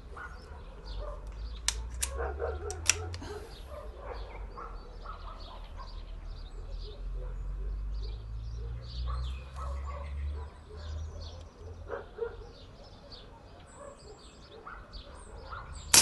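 Outdoor background of birds chirping over a low wind rumble, with a few short sharp sounds about two to three seconds in. Right at the end comes a single sharp crack: the PCP P10 air rifle firing.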